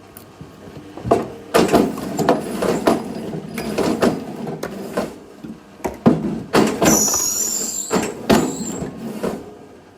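Irregular wooden knocks and clattering of firewood being chopped and handled, with a brief high squeak about seven seconds in.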